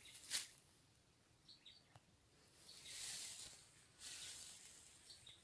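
Quiet outdoor orchard ambience: soft rustling swells, typical of steps through grass, and a few faint short bird chirps.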